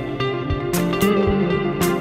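Background music: a guitar-led song with a steady drum beat, no singing.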